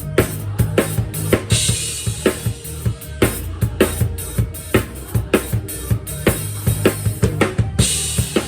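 Drum kit played in a steady groove: bass drum and snare hits, with a crash cymbal struck about a second and a half in and again near the end. The kit is heard unprocessed, straight from the microphone.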